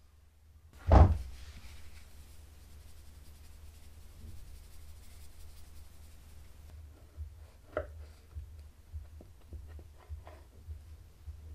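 Kitchen handling sounds while a baked cheesecake is finished: a heavy thump about a second in, then soft tapping from a powdered-sugar shaker dusting the cake, and light clicks near the end as a knife cuts into it.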